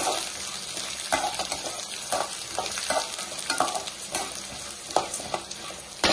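Chana dal, urad dal and coriander seeds sizzling in hot oil in an aluminium kadai while a steel spatula stirs them, scraping and knocking against the pan about once a second. The loudest knock comes at the very end.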